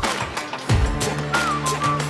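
Background music with a steady beat of drum hits under a held bass note, and a short high melody line that slides down in pitch in the second half.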